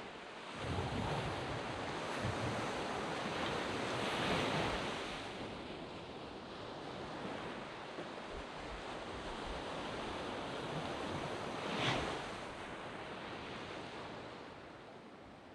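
Sea waves breaking and washing up a sand beach, the surf swelling and falling away in slow surges, with a sharper crash about twelve seconds in.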